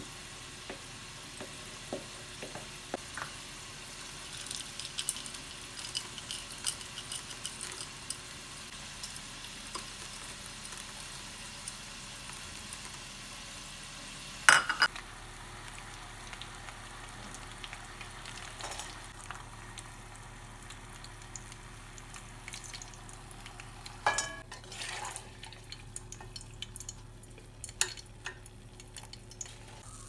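Kitchen cooking sounds: batter being scraped from a plastic bowl, then after a sharp knock about halfway, potato wedges sizzling as they fry in hot oil, with a metal skimmer clinking against the pan as they are lifted out.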